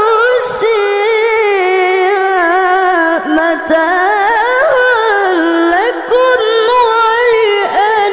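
A boy's high voice reciting the Quran in the melodic, drawn-out tajweed style, holding and ornamenting long notes with wavering turns and slides. There are brief breaks about three, six and near eight seconds in.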